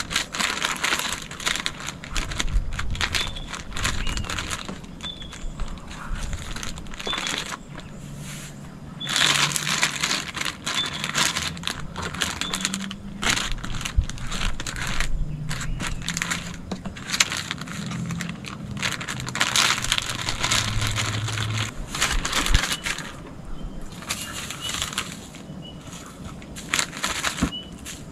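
Clear plastic zip-lock bag crinkling and rustling in bursts as it is handled and filled with fish pieces and other ingredients.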